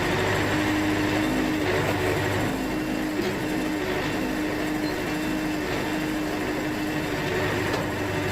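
Wood-Mizer LT70 sawmill running with a steady mechanical hum and a constant drone.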